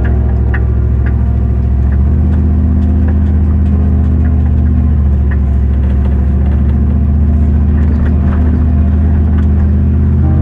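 A vehicle engine running at a steady speed: a loud, even low drone with a few faint clicks and rattles over it.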